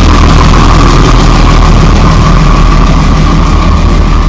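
Diesel engine of a MaK shunting locomotive running loudly close by. It is a steady low drone with a constant higher hum above it.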